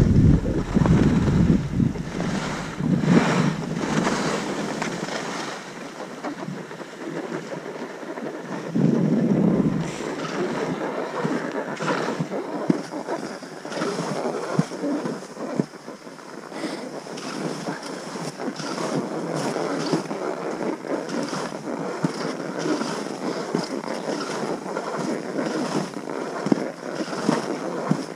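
Skis hissing as they slide through powder snow, with wind buffeting the microphone in heavy gusts during the first few seconds and again around nine seconds in.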